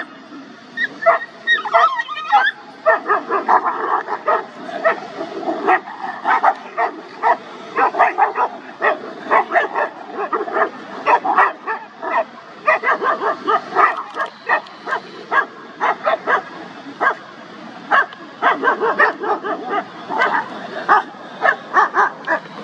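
Several dogs barking, with short barks coming thick and overlapping throughout, often several a second.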